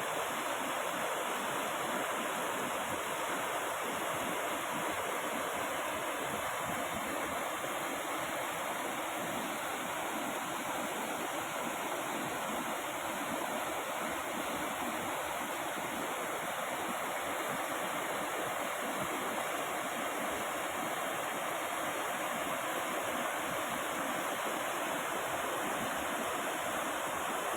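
Waterfall: falling water rushing steadily and without a break.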